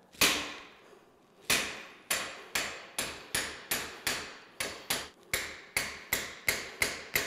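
Ball-peen hammer striking a steel punch held against the outboard CV joint of an ATV drive axle, driving the joint off the axle: a single blow, then after a short pause a steady run of ringing metal-on-metal strikes, about two and a half a second.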